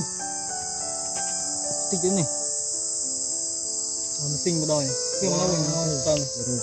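Insects chirring steadily at a high pitch, with a melody of held notes and wavering, gliding tones over it.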